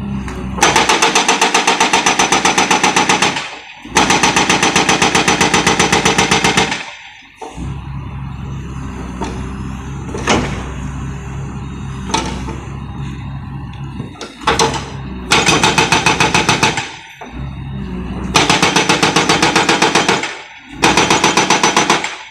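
Excavator-mounted hydraulic breaker hammer pounding the ground in five bursts of rapid, evenly spaced blows, with the excavator's engine running steadily in the pauses between bursts. The breaker is being test-fired after its nitrogen charge and pressure were adjusted.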